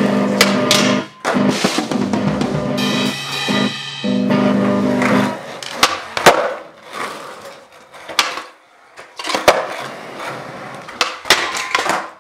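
Band music with a drum kit, then skateboard wheels rolling on a concrete floor with irregular sharp clacks of the board popping and landing. The sound cuts off abruptly near the end.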